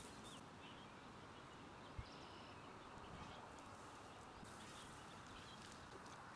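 Near silence: faint outdoor ambience, with one soft knock about two seconds in.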